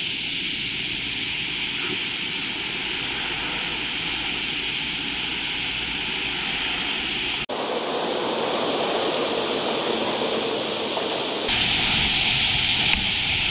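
Steady rush of the Kamo River's water running high over a stony bed. The tone of the rush changes abruptly about halfway through and again near the end.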